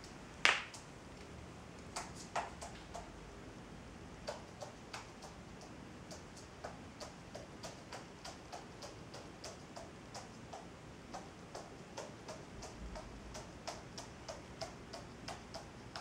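Wood pigeon's claws clicking on a laminate floor as it walks: light, quick ticks about two to three a second, with one sharper knock about half a second in.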